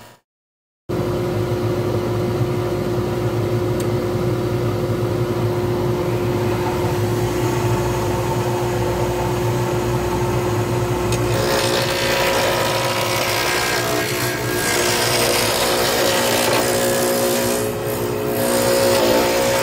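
Small pen-turning lathe running with a steady motor hum. It cuts in abruptly after a brief silence. From about eleven seconds in, a rougher scraping hiss joins it as a turning tool cuts the spinning copper leaf and grapevine pen blank.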